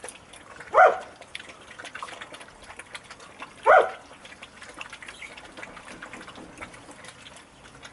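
Saarloos wolfdog puppies eating from steel bowls, with a run of faint clicks and crunching. Two short, loud barks come about a second in and again near four seconds.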